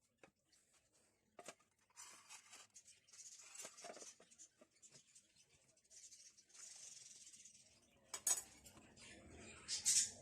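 Faint kitchen handling sounds after the mixer has stopped: scattered light clicks and soft rustling, with two sharper knocks about eight and ten seconds in.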